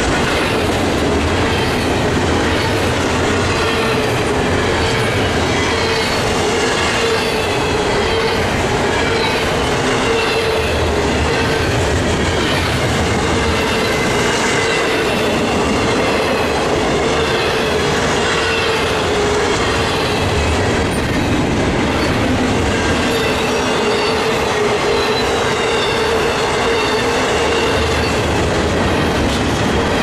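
Double-stack intermodal well cars rolling past: a steady clatter of steel wheels on rail, with a steady ringing tone and faint wavering wheel squeals.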